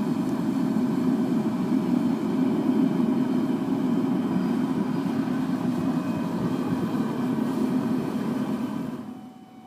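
Propane forced-air burner firing the melting furnace: a steady loud roar of flame and blower, which stops abruptly about nine seconds in.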